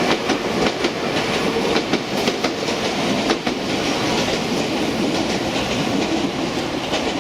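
Container wagons of a freight train rolling past, with a steady rumble and an uneven run of wheel clicks over the rail joints.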